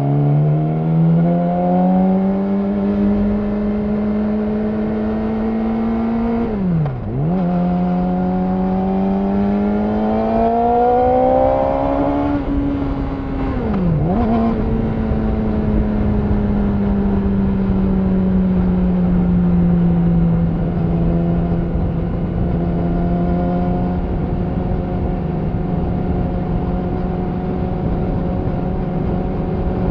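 Yamaha R6 inline-four motorcycle engine through an Akrapovic slip-on exhaust, pulling up through the revs at the start, then riding on with the note climbing slowly. Twice, at about seven and fourteen seconds, the pitch dips sharply and comes straight back. After that it settles into a steady cruise, easing off slightly.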